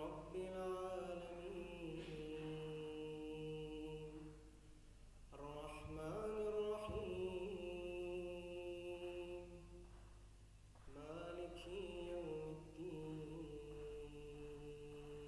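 A man's solo voice reciting the Quran in a melodic, chanted style, holding long ornamented notes. It comes in three phrases with short pauses about five seconds and ten and a half seconds in, over a steady low hum.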